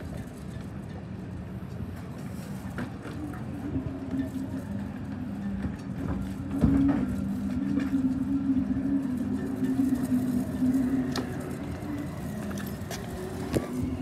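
A steady low engine hum runs throughout. Over it come a few sharp knocks from handling a plastic gas can at an inflatable dinghy, the loudest about seven seconds in.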